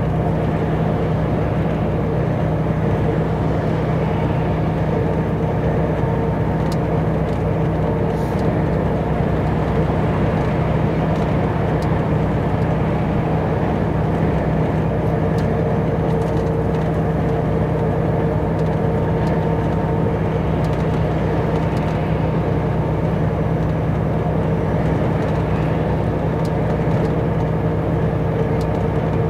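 Volvo FH truck cruising at a steady speed, heard from inside the cab: an even engine hum with tyre and road noise that holds the same pitch throughout.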